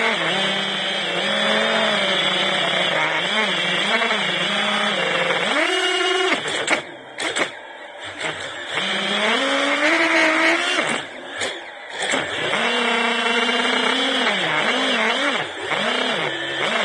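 FPV quadcopter's electric motors and propellers whining, the pitch rising and falling constantly with the throttle. Twice the sound drops away briefly as the throttle is eased off, then comes back up.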